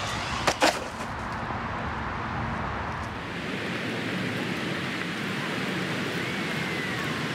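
A 1/8-scale RC buggy hitting the ground with two sharp knocks in quick succession, about half a second in, followed by a steady rushing hiss.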